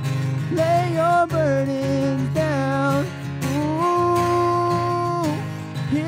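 A man singing a worship song to his own strummed acoustic guitar. Short sliding phrases are followed, a little past halfway, by one long held note.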